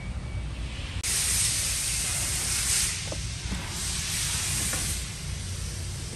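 A steady hiss that starts suddenly about a second in and eases off near the end, over a low rumble.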